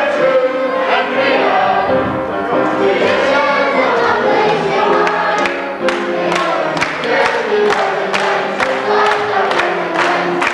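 A mixed stage chorus singing together with musical accompaniment. About halfway through, a sharp steady beat comes in at about three strokes a second.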